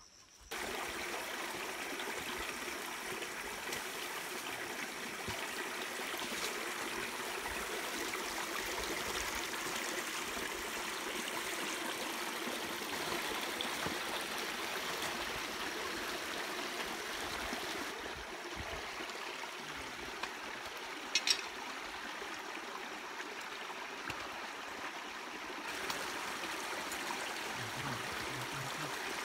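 Shallow creek running over rocks: a steady rush and trickle of water, with one brief sharp click about two-thirds of the way through.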